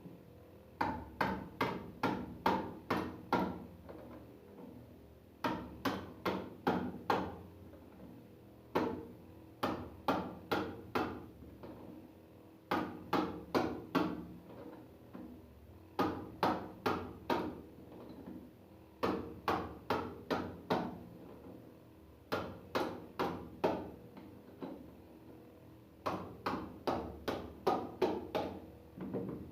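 Hammer blows in quick bursts of about six to eight strikes, roughly three a second, repeated every few seconds, as seized bolts on a swimming pool sand filter's lid are knocked loose.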